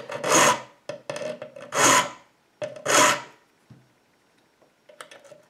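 Hand file rasping across a steel key blank, cutting a bitting position deeper. There are three loud strokes about a second apart with shorter, lighter strokes between them, then a few faint clicks near the end.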